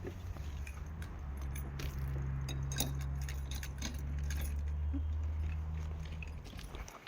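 A steady low mechanical hum that stops near the end, with scattered light metallic clinks over it.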